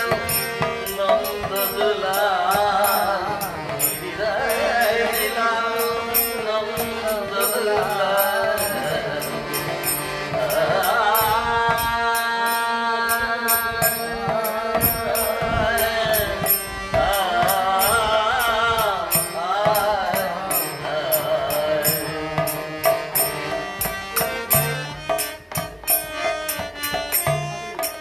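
Harmonium playing held chords and melody while a man sings a devotional kirtan chant with a wavering, ornamented voice, over a steady percussion rhythm.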